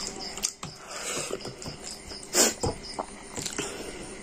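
A person chewing a mouthful of rice by hand-eating, with small wet mouth clicks and smacks and the squish of fingers working rice on a steel plate. There is one louder wet smack about two and a half seconds in.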